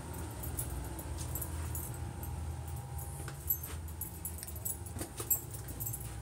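Light metallic jingling and scattered clicks from a dog's collar tags as the dog moves about on the stairs, over a steady low hum.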